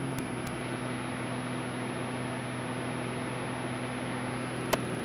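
Pitts aerobatic biplane's engine and propeller running steadily in flight: a constant low drone over rushing air noise. A single sharp click near the end.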